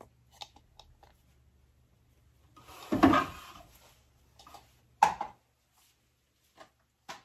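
Plastic food-colouring dropper bottles rattling and clicking together in a clear plastic jug: a few light clicks, one louder rattle about three seconds in, and a sharp click about two seconds later.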